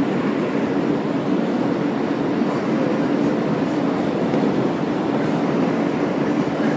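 Inside an R143 subway car running along elevated track: a steady rumble of wheels on rail with a constant hum underneath.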